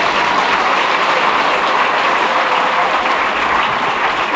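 Stadium crowd applauding, a steady loud wash of clapping.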